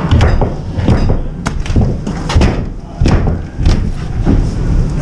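Pike pole tearing down a drywall ceiling to reach a hidden attic fire: a string of knocks and thuds as the pole strikes and pulls and pieces of ceiling come down.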